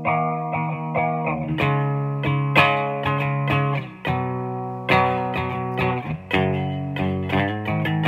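Squier Stratocaster electric guitar strummed in chords through a Peavey Valve King tube amp. Each chord rings out, with a new strum about every second.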